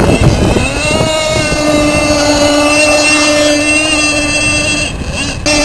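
Gas-powered RC boat's small two-stroke engine running flat out, a steady high-pitched whine that climbs slightly in pitch about half a second in, then dips briefly near the end. Wind buffets the microphone at the start.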